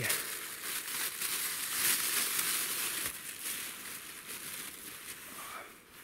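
Crinkling and rustling of a food wrapper being handled as sandwiches are unwrapped, a dense crackle that is loudest about two seconds in and fades towards the end.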